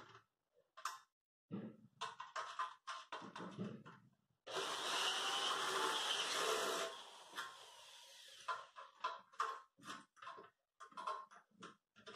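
Small metal parts and tools clicking and tapping in quick, irregular knocks as a sewing machine is assembled and washers are fitted. About four seconds in, a loud steady hiss starts suddenly and lasts a couple of seconds before fading.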